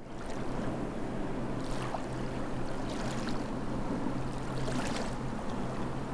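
Water ambience on a bay heard from a small boat: a steady wash of water and wind noise under a low, steady hum, with a few faint splashes about two, three and five seconds in.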